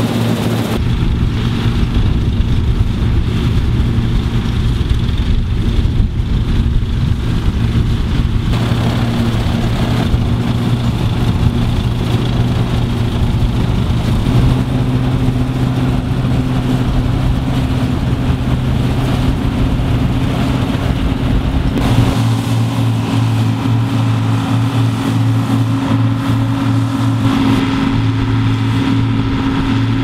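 Vintage John Deere 630 combine running while it harvests wheat: a steady engine drone with the noise of the working machinery, its pitch shifting slightly a few times.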